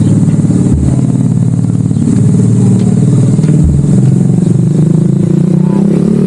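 A motor vehicle's engine running steadily close by, its pitch wavering slightly, with a couple of low thuds.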